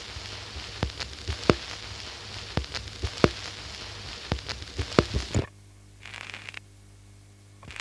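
Record player with the stylus riding a spinning vinyl record: surface crackle and irregular pops over a steady low hum. About five and a half seconds in it drops suddenly to a quieter hiss and hum with a few clicks.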